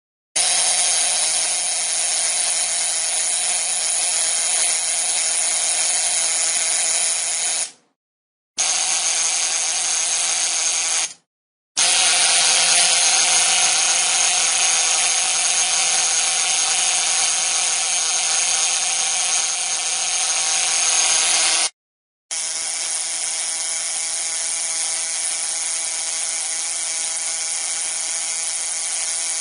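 Low-voltage electric arc buzzing and hissing steadily, in four long stretches broken by three short gaps about 8, 11 and 22 seconds in.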